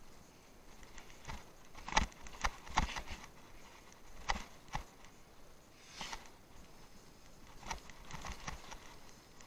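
Irregular knocks and rattles of a bicycle jolting over rough off-road ground, loudest in a cluster about two to three seconds in.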